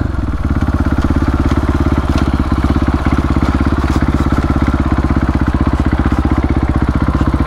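KTM supermoto's single-cylinder engine idling steadily with an even, rapid pulse, not revved.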